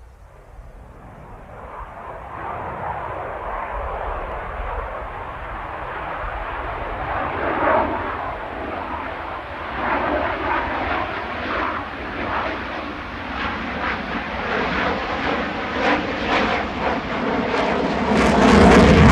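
Single-engine JAS 39C Gripen fighter jet with its Volvo RM12 turbofan running, passing overhead in a display. The sound grows steadily louder as it approaches, turning harsher and more crackling, and is loudest near the end.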